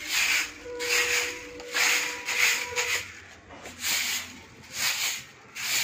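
Straw broom sweeping textured ceramic floor tiles: repeated brushing swishes, about one stroke a second.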